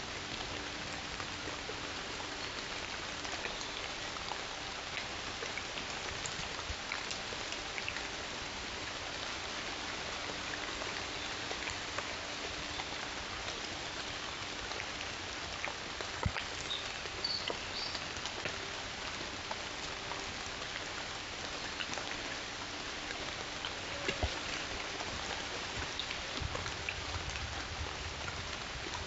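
Steady rain falling, a continuous hiss dotted with many small drop ticks. A few faint high chirps come through about two-thirds of the way in.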